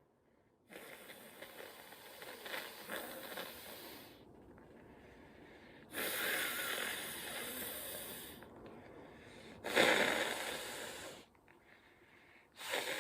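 A person breathing and sniffling noisily through the nose in the wake of a sneeze brought on by tickling the nose with a twisted paper string. There are four long breaths, and the third, about ten seconds in, starts sharply and is the loudest.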